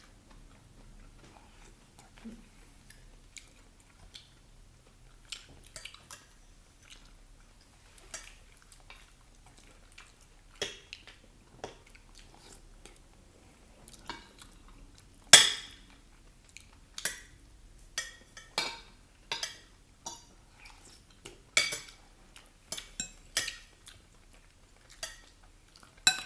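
Cutlery clinking and scraping against plates and bowls during a meal, with scattered short clinks, the loudest about halfway through and coming more often near the end.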